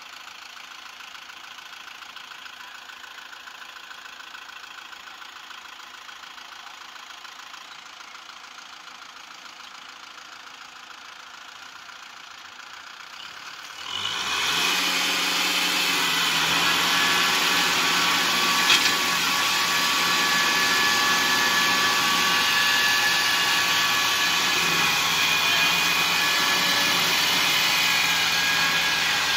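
Kubota M6040SU tractor's diesel engine running steadily at a low level. About halfway through, the sound jumps abruptly to a much louder, steady level with a harder, brighter edge and holds there.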